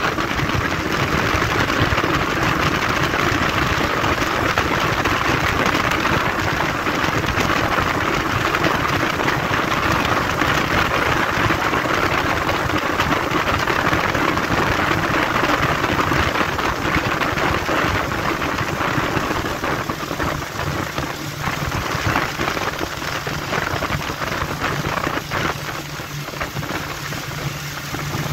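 Motorboat under way at speed: a dense, steady rush of engine, water against the hull and wind. About twenty seconds in the rush eases a little and a steady low engine hum comes through.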